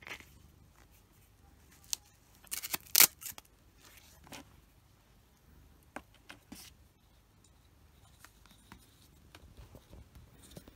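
Scattered brief rustles and scratchy rasps of a rubber grooming glove being rubbed over a short-haired cat's fur and pulled off the hand. The loudest is a short cluster of rasps about three seconds in.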